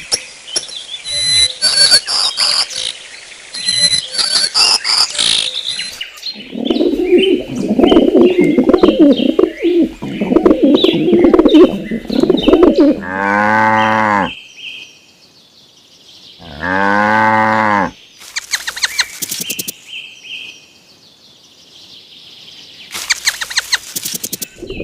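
Cattle mooing twice, each a long steady call, after a stretch of bird chirping and other rough animal noises; short clicking sounds follow near the end.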